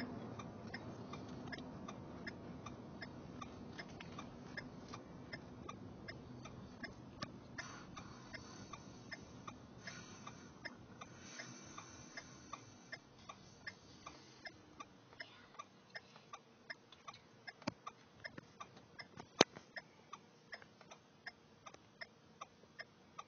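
Car turn-signal indicator ticking steadily inside the cabin, about two ticks a second, over a low rumble that fades away during the first half. One sharper, louder click about nineteen seconds in.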